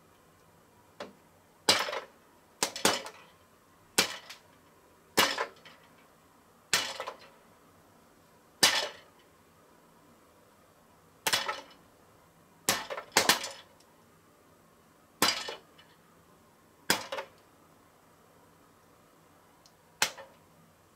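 Popcorn kernels popping one at a time inside a toy light-bulb-heated popcorn popper: sharp pops every second or so, irregularly spaced, now and then two in quick succession.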